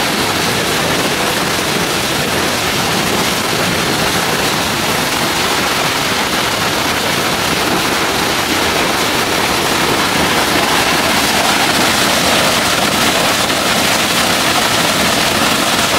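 Waterfall rushing and crashing: a loud, steady roar of falling water.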